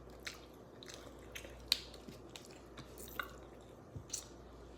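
Close-up eating sounds of a seafood boil: wet chewing, squishing and smacking, with scattered sharp clicks and cracks, the loudest about a second and a half in.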